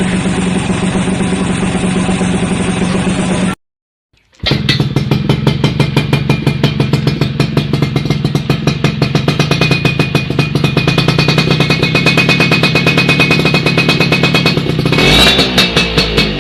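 Yamaha F1ZR two-stroke single-cylinder motorcycle with an aftermarket exhaust, idling steadily. It cuts off just under four seconds in, and after a brief silence a second F1ZR exhaust idles with a fast, even popping beat. That one revs up near the end.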